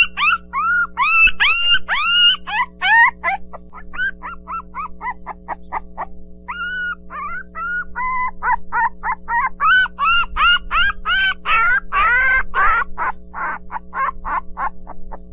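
Puppies whining and yipping in quick, high-pitched calls that rise and fall, several overlapping and thickest near the end. A steady low drone runs underneath.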